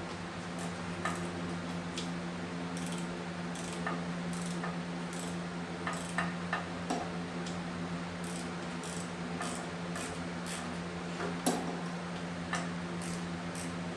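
Scattered, irregular light clicks and clinks over a steady low hum.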